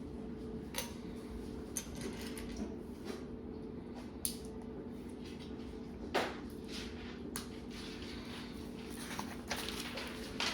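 A few light knocks and clicks from things being handled, the sharpest about six seconds in, over a steady low hum.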